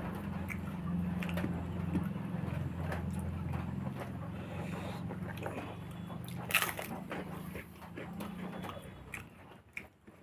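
Close-up chewing and mouth sounds of a person eating a meal of rice and curries, with a louder crunch about six and a half seconds in; the chewing thins out near the end.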